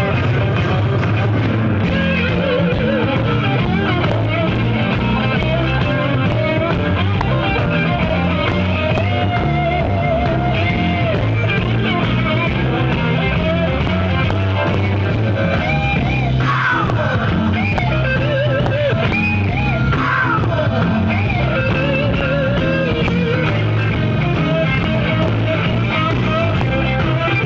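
Electric blues band playing live and loud: electric guitars, bass, drums and keyboard, with a few bent lead notes about two-thirds of the way in.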